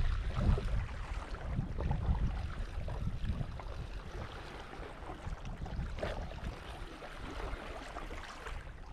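Wind buffeting the microphone as a low rumble, strongest in the first second and then easing, over the soft wash of small waves at the sea's edge.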